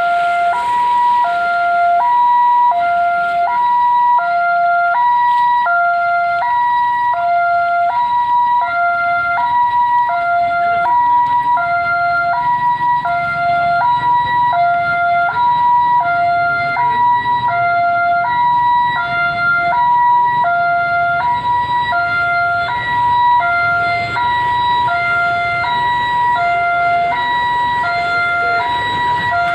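Railway level-crossing warning alarm sounding, a lower and a higher electronic tone alternating in an even, repeating two-note pattern, signalling that a train is approaching and the barrier is closed.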